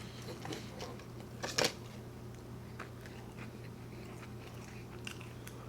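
A person chewing food with the mouth close to the microphone: small wet clicks and smacks, with one louder, noisier chew or bite about a second and a half in.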